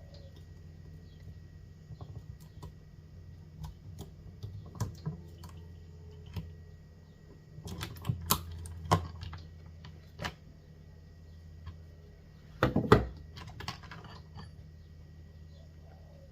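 Small metal clicks, taps and clatter of a Stihl 194 chainsaw being taken apart by hand, its bar and chain coming off because the sprocket area is stuck with fibres from cut chainsaw chaps. A louder burst of clatter comes about three-quarters of the way through, over a faint low hum.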